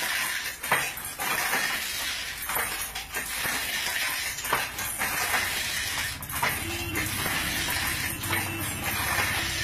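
Frame handloom being worked by hand: sharp wooden knocks and clacks from the beater and shuttle at an uneven pace, roughly one a second, over a steady hiss.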